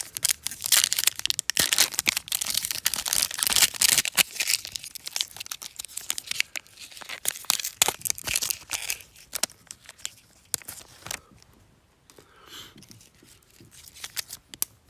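Foil wrapper of an NBA Hoops Premium Stock trading card pack tearing and crinkling as it is ripped open by hand. The crackling is dense for about ten seconds, then dies down to a few faint rustles.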